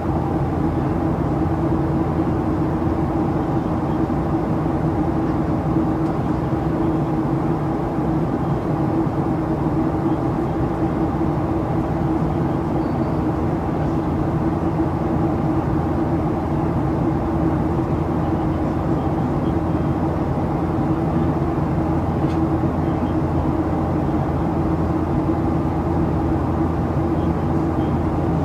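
Steady cabin noise of a Boeing 737-800 in flight, its CFM56-7B engines running: an even rush of air with a low hum and a few steady tones that do not change.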